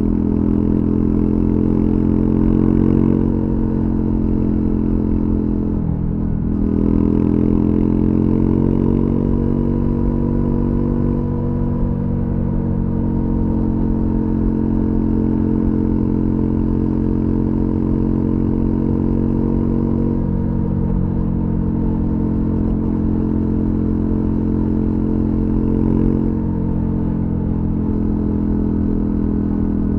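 Triumph Scrambler 400X's single-cylinder engine through its stock exhaust, riding along an open road at steady speed. The engine note dips and climbs again about six seconds in, with smaller changes in pitch later.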